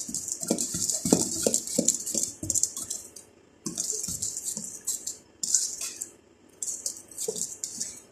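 Wire balloon whisk beating a thick breadcrumb cake batter in a stainless steel mixing bowl: quick scraping strokes with light clinks of the wires against the metal, pausing briefly about three seconds in and again around six seconds.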